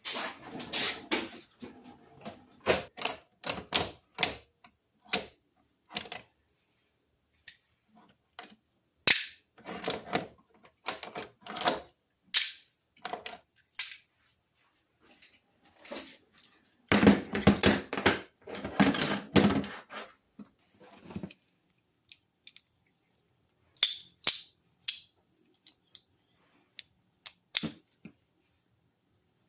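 A long run of sharp metallic clicks and clacks, some single and some in quick clusters, from vintage locking pliers and other metal hand tools being handled. A denser stretch of clatter comes a little past the middle.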